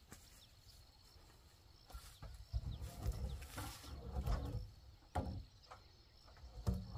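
Wooden knocks and bumps as a log pole is handled and set up against a barn's wooden roof frame, several sharp knocks coming from about two seconds in, with a low rumble of handling in the middle. A faint steady insect drone runs underneath.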